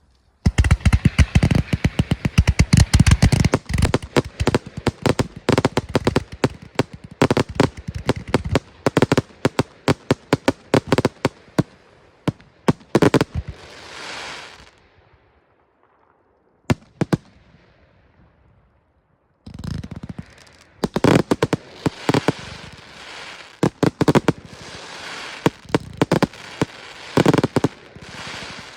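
Large fireworks display: a rapid salvo of loud bangs and crackling, a fading hiss, a few seconds' pause broken by a single bang, then a second dense volley of bangs.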